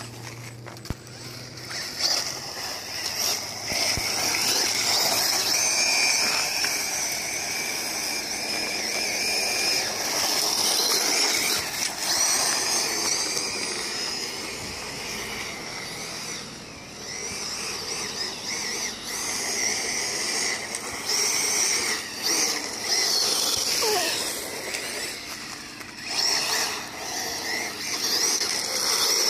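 A 1/10-scale Tamiya TL01 rally car with an Inix 10T brushless motor driving on loose gravel. Its high motor whine rises and falls over and over with the throttle, over the hiss of tyres and gravel being sprayed.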